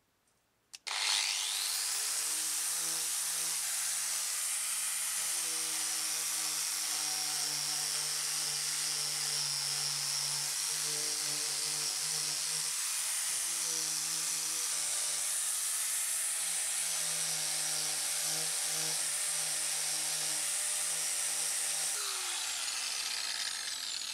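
Handheld electric angle grinder with a sanding disc spinning up about a second in, then running steadily as it sands body filler on a car's lower body panel, its motor note dipping briefly twice under load. Near the end it is switched off and winds down with a falling whine.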